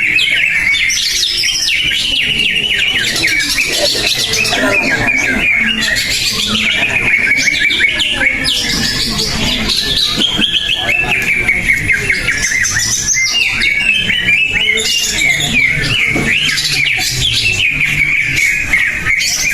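Cucak ijo (leafbird) singing without pause: a fast, continuous stream of chirps, trills and whistled phrases.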